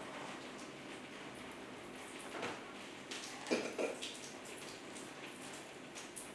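Spilled water trickling and dripping on a cloth-covered table, faint and steady, with a few light knocks about two and a half seconds in and again past the middle.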